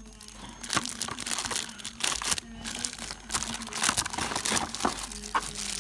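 Clear plastic packaging crinkling in irregular crackles as a plastic-wrapped charger adapter is handled and pulled from the box.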